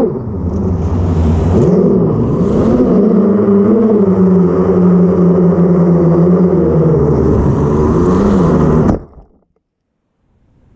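10-inch FPV quadcopter's brushless motors and propellers whining, the pitch rising and falling with the throttle, heard from the onboard camera. The whine cuts off suddenly about nine seconds in as the motors stop.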